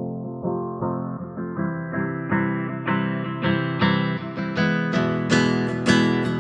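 Background music: guitar chords strummed at an even pace, the sound growing steadily brighter.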